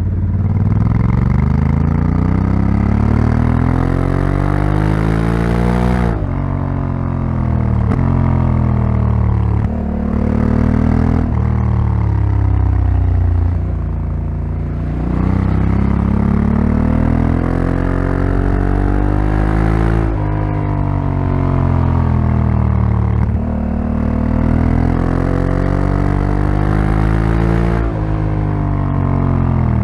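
Honda Africa Twin CRF1100L's 1084 cc parallel-twin engine under way, its revs climbing again and again and cutting back sharply at each gear change or closing of the throttle. Near the middle it eases off to a lower note for a few seconds before pulling hard again.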